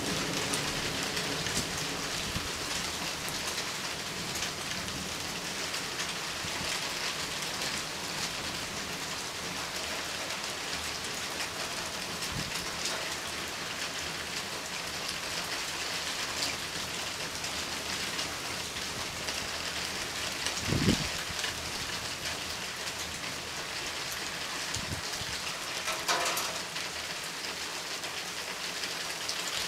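Steady rain falling and pattering on surfaces during a thunderstorm. A brief low thump about two-thirds of the way through is the loudest moment, and a shorter knock follows a few seconds later.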